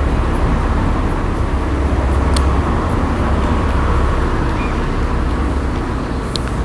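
Steady low rumble of a car driving, road and engine noise with no speech over it, and a couple of faint ticks.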